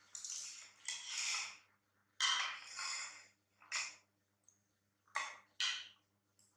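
Guava slices and a ceramic plate being handled on a tiled floor: a series of about seven short scraping, clattering sounds.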